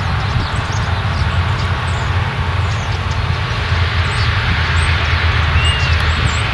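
Claas Lexion combine harvester working in grain: a steady low engine drone with an even rush of threshing and chopping noise over it.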